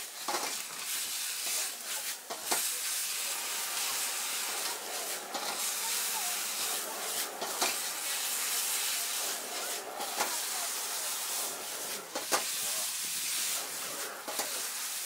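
Food sizzling and hissing in a wok over a high gas flame, with a steel ladle scraping and clanking against the wok every couple of seconds as the stir-fry is tossed.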